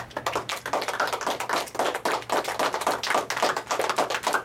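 Applause from a small group: many quick, overlapping hand claps.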